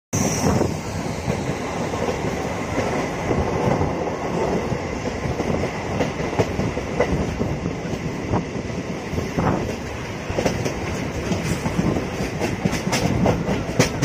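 Train running along the track: a steady rumble of wheels on rails, with sharp clicks that come more often in the last few seconds.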